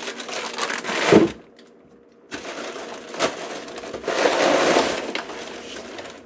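Plastic bags and a foil-lined thermal liner crinkling and rustling as packing is lifted out of a cardboard shipping box. The rustling comes in two spells with a short pause between them and a sharp click in the second spell.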